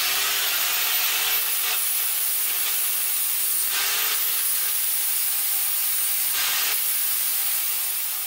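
Angle grinder grinding the rough edges off a steel workpiece: a steady, harsh grinding with a high motor whine, growing harsher a few times as the disc bites harder.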